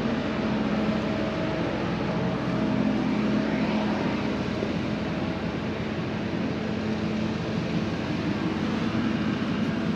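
A steady mechanical drone with a low hum under a wash of noise, like an engine or machine running.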